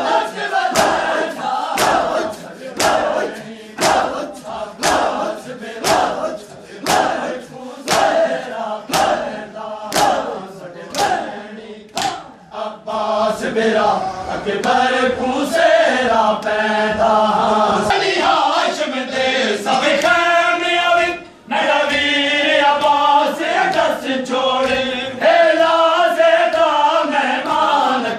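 A crowd of men doing matam: open hands slapping bare chests together about once a second to a chanted noha. About halfway through the slapping stops and the men go on chanting the lament in unison.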